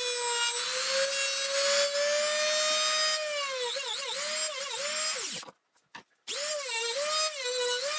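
Dremel rotary tool spinning a small abrasive cutoff disc with a steady high whine. From about halfway the pitch repeatedly sags and recovers as the disc bites into a metal drill bit to cut it off. The sound cuts out briefly about two-thirds through, then the whine resumes with the same dips.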